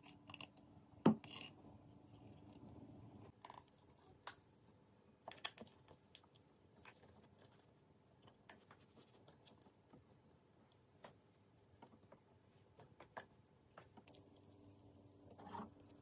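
Scattered light clicks and knocks of wooden cage accessories being handled and set down in paper bedding, the loudest about a second in.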